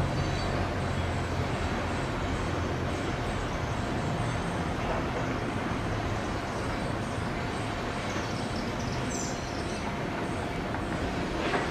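Diesel freight locomotives heard from a distance: a low engine rumble that fades after the first few seconds, over a steady wash of outdoor noise.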